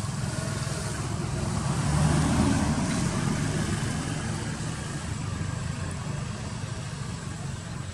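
Motor vehicle engine running, a steady low rumble that swells about two seconds in and then slowly eases off, as traffic passing by.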